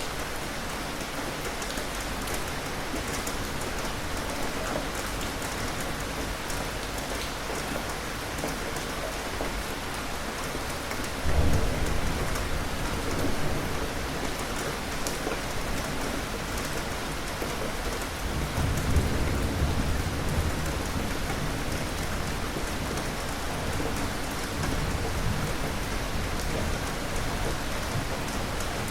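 Steady rain falling, with thunder: a sudden low rumble about a third of the way in, the loudest sound, and a longer rumble a little later.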